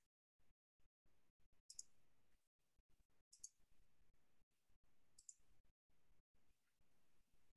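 Near silence: faint room tone with three soft, high clicks about two seconds apart.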